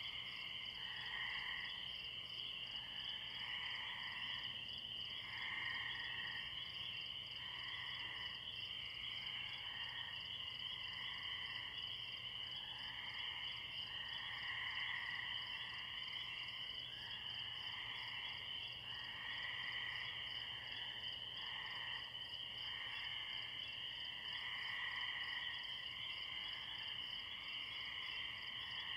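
Distant pond chorus of frogs, including spring peepers, with tree crickets trilling steadily underneath; the frog calls come in soft swells every second or two.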